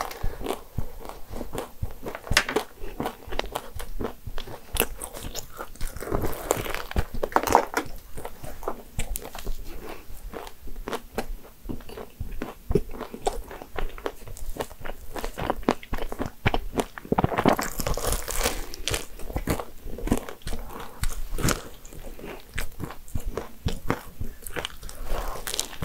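Close-up crunching and chewing of an almond croissant: the flaky pastry crackling and the toasted almond topping crunching with each bite, louder stretches of biting about six and seventeen seconds in.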